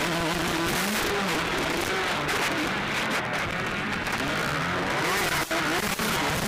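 Motocross bike engines revving, rising and falling in pitch as riders work the throttle, under a heavy rough noise from the badly recorded microphone.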